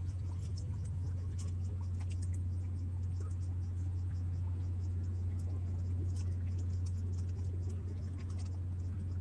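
A steady low hum with light, irregular scratching and ticking over it.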